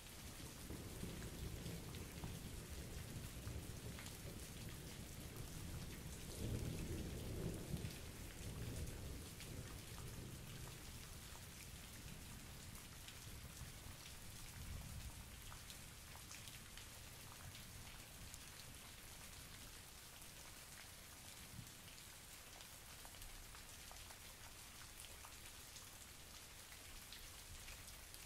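Steady rain falling, with individual drops ticking close by. A long low roll of thunder builds from the start, is loudest about seven seconds in, and fades away over the following ten seconds or so.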